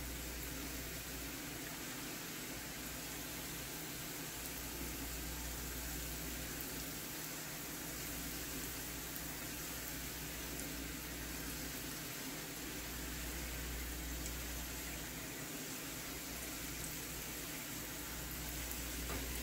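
Dough pieces deep-frying in hot oil in a frying pan: a steady sizzle and bubbling hiss as more pieces are dropped in one at a time. A low hum runs underneath.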